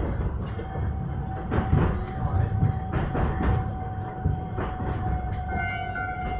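Iyotetsu electric train running along the track, wheels rumbling with a few clacks over rail joints and a steady whine. Near the end a ringing tone comes in as the train reaches a level crossing: the crossing's warning bell.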